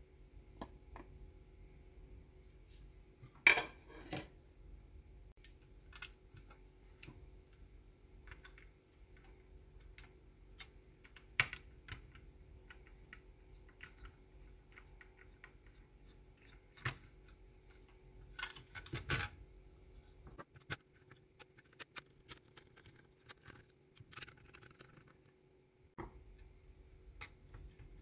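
Scattered clicks, taps and scrapes of small hard parts and tools being handled, with a few louder knocks, the loudest about three and a half seconds in and about eleven seconds in, and a short cluster a little past halfway. A faint steady hum runs underneath.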